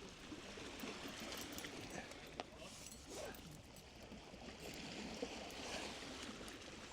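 Faint, irregular water splashing and trickling, with a single sharp click about two and a half seconds in.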